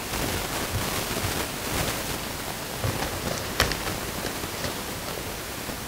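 A cardboard trading-card box and its wrapping being opened by hand: scattered crinkling and small clicks, with one sharp snap about three and a half seconds in, over a steady hiss.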